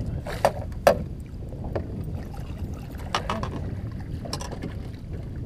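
Steady low wind noise and water slapping against a boat hull, with several sharp splashes, two loud ones about half a second apart near the start and more around three and four seconds in, as a hooked pike thrashes at the surface and is scooped into a landing net.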